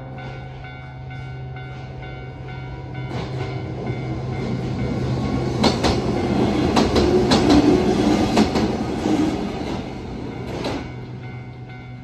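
Japanese level-crossing warning bell ringing in a steady repeating pattern while an electric train runs through the crossing. The train's noise builds from about three seconds in, is loudest in the middle with wheels clacking over rail joints, and fades away near the end.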